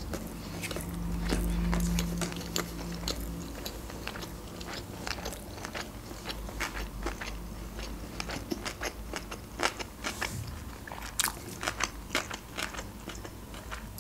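A person chewing a mouthful of sushi roll close to the microphone, with many small irregular wet clicks and crunches of the mouth. A low steady hum is heard for about the first three seconds.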